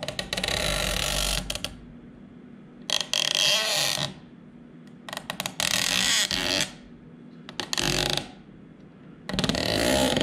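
GoPro Jaws flex clamp, clamped to a tabletop, being pushed back and forth by hand: about five separate bursts of rubbing and creaking handling noise, each a second or so long.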